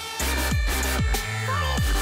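Electronic dance music with a heavy bass and a steady beat.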